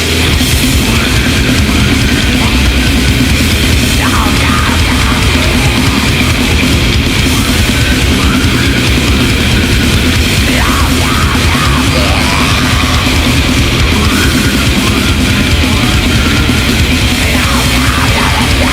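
Heavy metal demo recording: distorted guitar and bass over programmed drums, loud and dense throughout.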